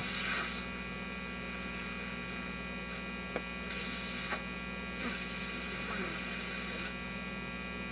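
GE 212 radio's speaker giving a steady mains hum over faint background noise, with a couple of soft clicks.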